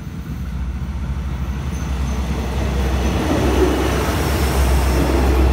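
Thai State Railway diesel multiple-unit express train approaching and passing close by. The low rumble of the engines and wheels on the rails grows steadily louder as the cars go past.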